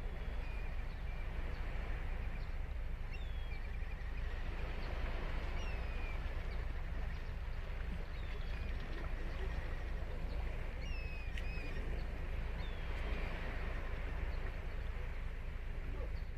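Ocean surf washing onto a sandy beach, a steady rush of breaking waves over a deep constant rumble. Short high bird calls, several of them thin gliding whistles, come and go above the surf.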